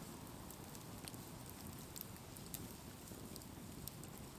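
Faint ticks and small pops from the glowing coals of a wood campfire with chestnuts roasting in them, scattered irregularly over a low, steady background noise.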